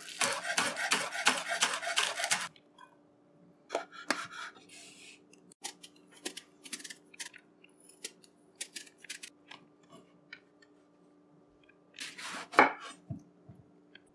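Chef's knife rapidly chopping scallion on a wooden cutting board for about two and a half seconds, then scattered quieter knife taps and clicks, and a few louder cuts through an eggplant near the end.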